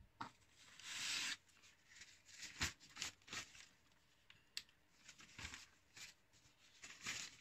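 Faint rustling of a sheet of paper being picked up and handled, with a longer rustle about a second in and a few light knocks and clicks.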